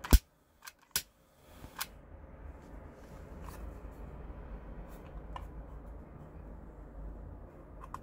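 Plastic clicks from a Glock 18 replica pistol lighter being handled: one sharp, loud click just after the start as the trigger is pulled, three more clicks in the next two seconds, then a few softer clicks and handling rubs.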